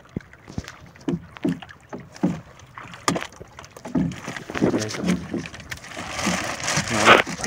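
Clear plastic bag crinkling and rustling in irregular bursts as gloved hands push a large live grouper down into it. The crinkling grows denser and louder for the last second or so.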